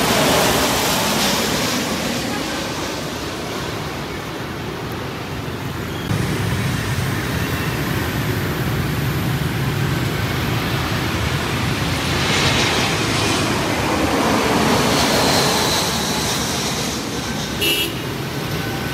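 A jet airliner passing overhead on landing approach, its engine rush fading over the first few seconds. Then steady city road traffic, with a short horn toot near the end.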